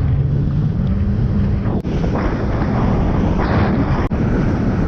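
Kawasaki jet ski running at speed through rough water, its engine hum under heavy wind buffeting on the microphone.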